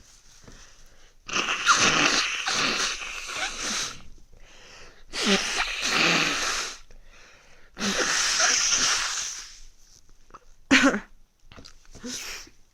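A person with a cold blowing their nose hard three times, each blow lasting about two seconds, then a short sharp burst and a fainter one near the end.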